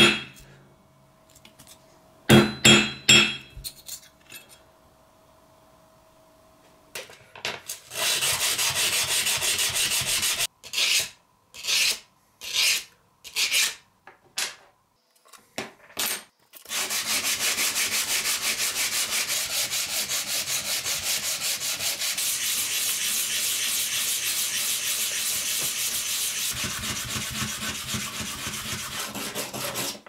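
Hand sanding of a small pocket-knife blade with a sandpaper-covered block, taking off rust and scratches. It goes as a long run of fast, even back-and-forth strokes, which stop and start around the middle and then run steadily through the second half. In the first few seconds a few hammer blows ring on a small steel anvil.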